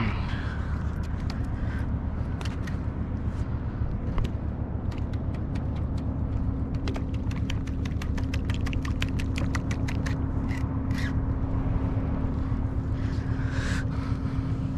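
A steady low mechanical hum, with a run of rapid, evenly spaced clicks from about a third of the way in to past the middle.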